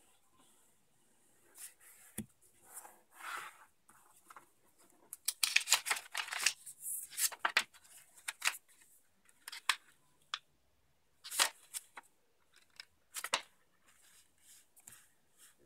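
Sheet of printed paper being folded and creased by hand along its dotted lines: irregular crinkling and crackling, busiest in the middle, with a few sharp single creasing strokes later on.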